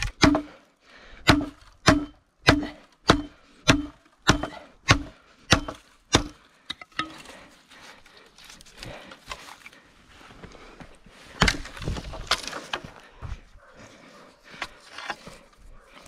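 Wood being struck in a steady rhythm: about ten hard knocks, a little over half a second apart, each with a short hollow ring. These give way to scattered knocks, rustling and cracking of wood, loudest a little past the middle.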